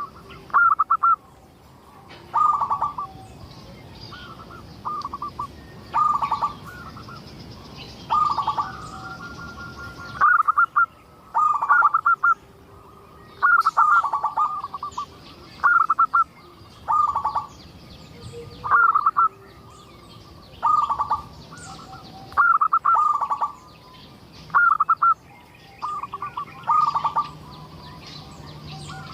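Zebra dove (perkutut) cooing: short, clear phrases of rolling notes repeated every second or two, with fainter high chirping from small birds behind it.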